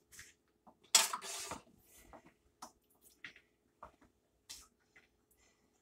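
Dishes and food being handled on a kitchen counter while chicken is dredged in seasoned flour: a sharp knock about a second in followed by a brief rustle, then scattered light clicks and taps of a bowl and plate being moved.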